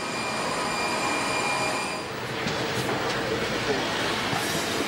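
Aircraft turbine whine over a steady rushing noise. Several high tones hold steady over the rush for about two seconds, then fade, leaving the rush alone.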